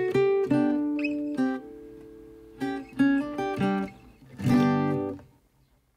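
Background music on acoustic guitar: picked notes and strummed chords, ending on a last strummed chord about five seconds in.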